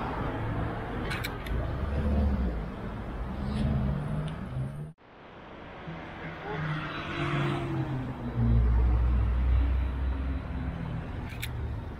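City street traffic: motor vehicles passing through an intersection, with a low engine rumble that is loudest about three-quarters of the way through. The sound cuts out abruptly just before halfway, then returns.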